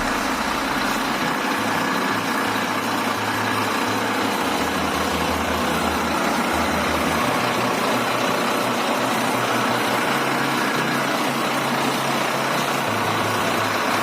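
Volvo B9R bus's rear-mounted six-cylinder diesel engine running at a steady, low speed.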